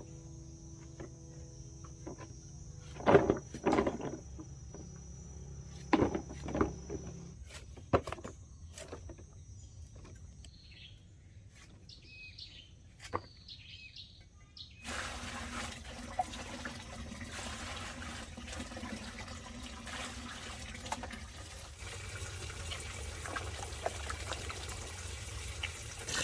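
Rural outdoor ambience: a steady insect drone, a few sharp knocks and short bird chirps. About halfway through it cuts to the steady rush of running water.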